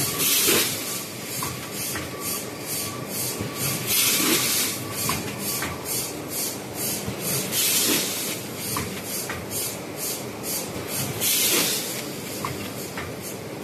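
Quad-seal vertical form-fill-seal packaging machine running, with a steady mechanical clatter of about three ticks a second. Four times, about every four seconds, comes a short, loud hiss of compressed air from its pneumatic cylinders.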